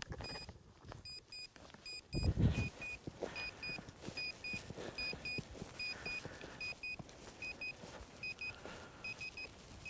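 Arva Evo avalanche transceiver in search mode beeping as it picks up a buried transmitter's signal: short, high beeps, mostly in quick pairs, repeating over and over. A brief low thump about two seconds in.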